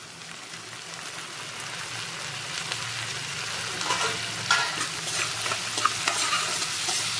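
Chopped onion, green chilli and peanuts sizzling in hot oil in a kadhai, growing steadily louder. In the second half a spatula scrapes and stirs through the mixture.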